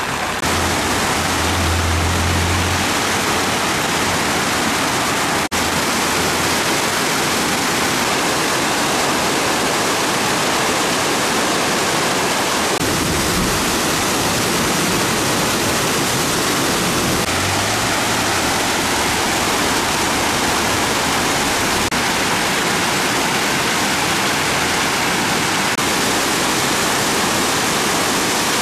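Swollen, muddy floodwater rushing fast through a river channel in a steady, loud wash of noise, after heavy rain has raised the river. There is a short break about five and a half seconds in.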